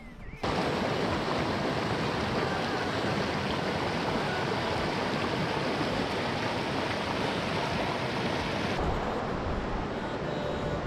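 Shallow rocky mountain stream rushing and splashing over stones, a steady, even rush of water that begins about half a second in. Near the end it drops to a softer, duller hiss.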